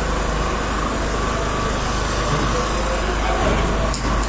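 Steady rumble of road traffic passing over a concrete overpass, heard from beneath it, with faint voices in the background and a brief click near the end.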